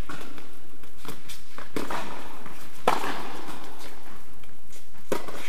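Tennis ball being struck and bouncing during a rally on an indoor court: a few sharp pops of racket and ball, the loudest about three seconds in, each with a short echo from the hall, over a steady background hiss.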